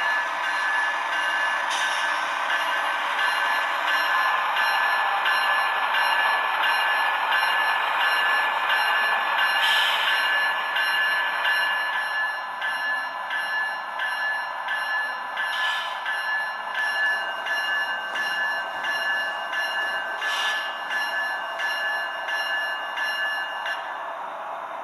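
HO-scale model GE ET44C4 diesel locomotive running, its ESU sound decoder playing diesel engine sound through a small onboard speaker with no deep bass, with steady high tones over it. Wheels click regularly over the rail joints, with a few louder knocks, and the sound grows quieter in the second half as the train moves off.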